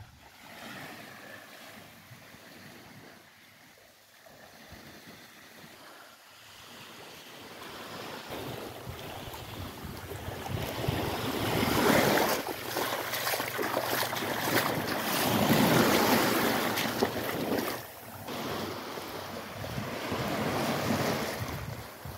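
Small waves washing up on a sandy beach, swelling and drawing back. Quiet at first, louder from about eight seconds in, with some wind on the microphone.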